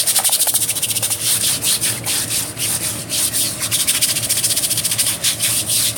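A hose-fed scrub brush scrubbing a wet, Lichtenberg-burned wooden board in rapid back-and-forth strokes, washing the loose carbon out of the burns.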